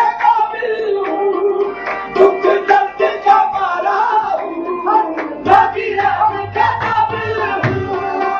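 Live qawwali: a singing voice in long, bending melodic runs over held harmonium tones, kept in time by tabla and hand-clapping. The drumming grows heavier about five and a half seconds in.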